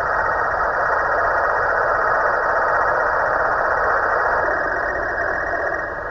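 A long snore from a snoring Halloween pumpkin, holding steady and easing off near the end.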